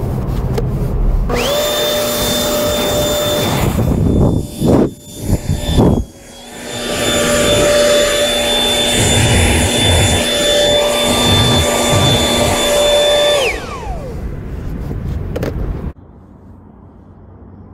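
Corded electric leaf blower running with a steady high motor whine over the rush of air. The whine winds up about a second in, and a few loud rough bursts come around five seconds in. Near the end the motor winds down, its pitch falling.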